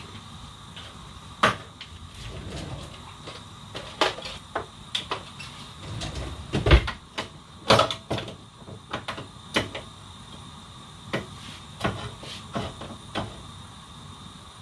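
Kitchen handling at a counter: about twenty irregular clicks, taps and knocks of tins, containers and utensils being picked up and set down, busiest and loudest midway, with one dull thud about seven seconds in.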